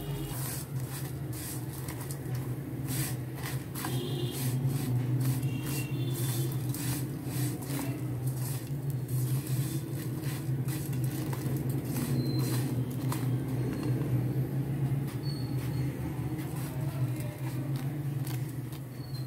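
Silicone spatula stirring and scraping thin vermicelli as it fries in a little ghee in a pan: irregular light scrapes and clicks over a steady low hum.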